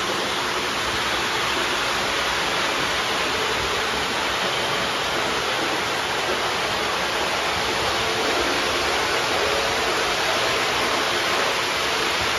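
O gauge model trains running fast around a layout, including the Lionel Polar Express high-speed set: a steady rolling rumble of metal wheels on three-rail track and electric motors.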